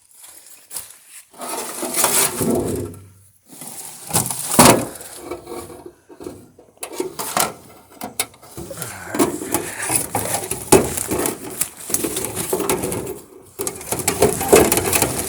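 Metal sluice boxes being handled and pulled out of a creek: irregular scraping and knocking in bursts, with short pauses between them.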